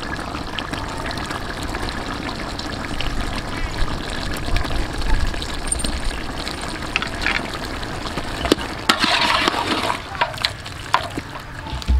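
A big pot of liquid curry bubbling while red ants are stirred into it with a metal ladle. Near the end, the ladle scrapes and knocks against the side of the aluminium pot several times.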